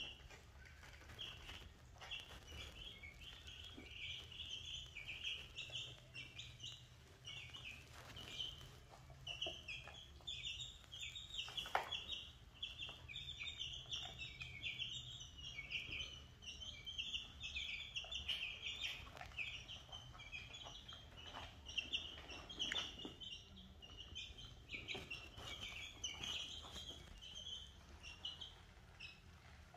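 Chicks and ducklings peeping: a near-continuous chorus of short, high peeps, with a few scattered light taps.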